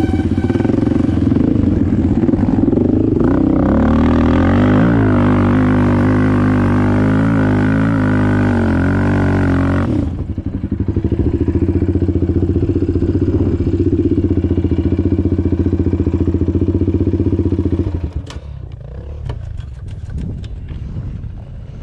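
Can-Am Outlander 1000 XMR quad's V-twin engine revving up and down while riding. About ten seconds in it runs at a steadier pitch. In the last few seconds it drops quieter, with scattered clicks and rattles.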